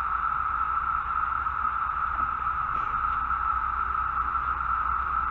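Chorus of periodical (17-year) cicadas: a steady, unbroken droning buzz at one constant mid-high pitch, with a low rumble underneath.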